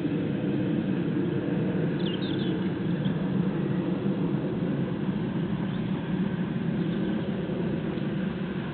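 An aeroplane flying over, its engine a steady drone that covers the birdsong. A few short bird chirps break through about two seconds in.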